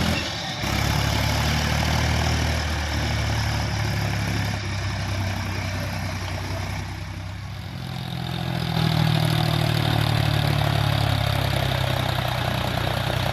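Heavy diesel machine engine running steadily, dropping back briefly between about six and eight seconds in and picking up again near nine seconds.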